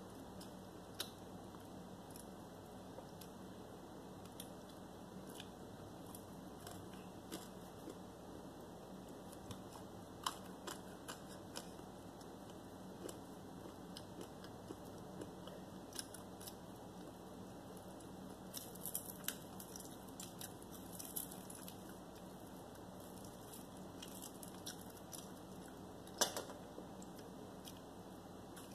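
Faint chewing of fried chicken, with scattered small clicks as the breaded chicken is torn apart by hand and one sharper click near the end, over a steady low hum.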